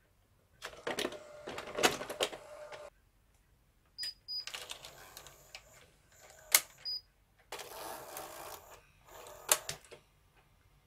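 Hitachi VT-S1000 S-VHS VCR's motorised cassette drawer and tape mechanism taking in a cassette: three spells of motor whirring and gear clatter, each with sharp clicks.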